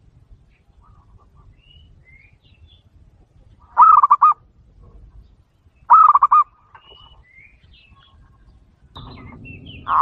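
Zebra dove (perkutut) cooing: two short, rapidly trilled coos about two seconds apart, with another starting at the very end. Faint chirps of small birds are heard between them.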